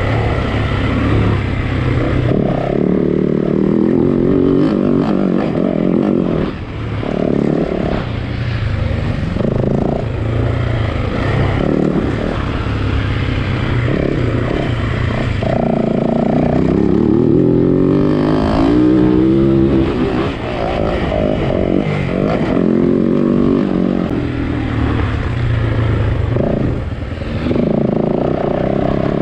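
A Yamaha WR-F four-stroke single-cylinder enduro motorcycle being ridden hard. The engine revs up and down again and again as the throttle is opened and closed, with short drops in level at a few throttle lifts.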